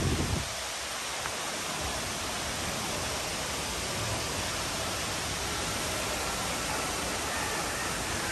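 Steady rushing of falling water from the Cloud Forest dome's indoor waterfall, with a brief low bump on the microphone right at the start.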